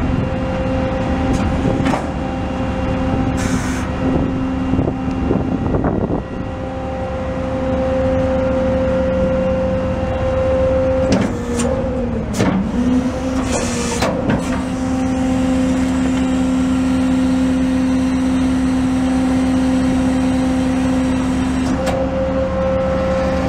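Pak-Mor rear-loader packer cycling, its PTO-driven hydraulics powered by the truck's International DT466E inline-six diesel running at raised speed: a steady pitched drone that dips briefly about halfway through as the hydraulics take load. A few metal knocks and clanks from the packer blade are mixed in.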